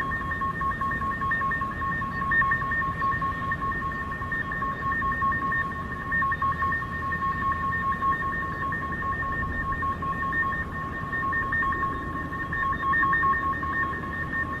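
A steady, unexplained drone of two high notes held together, wavering slightly, over a low rumbling noise.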